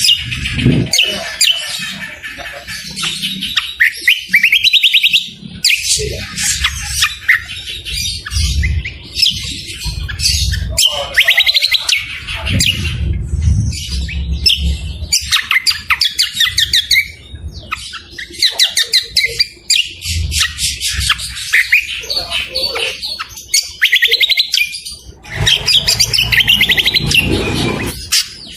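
Songbird singing a fast, continuous run of chirps and trills in repeated phrases with short pauses between them, over a low background rumble.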